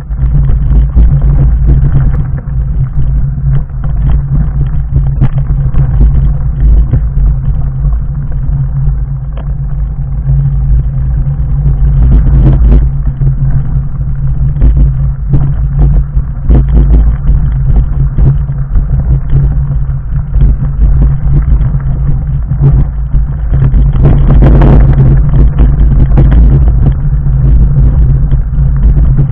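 Fat bike on 4-inch Schwalbe Jumbo Jim tyres rolling down a loose stony track: a loud, constant rumble full of knocks and rattles as the tyres hit rocks, growing harsher about five seconds before the end.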